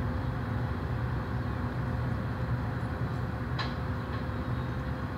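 Steady low drone of a small workboat's engine as the boat approaches, with a brief high chirp about three and a half seconds in.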